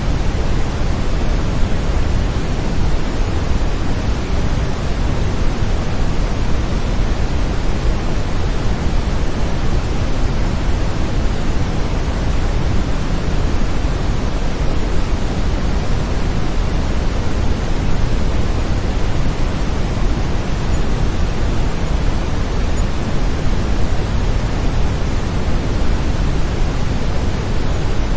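Steady brown noise: an even, deep rushing hiss, heaviest in the bass, with no changes in level.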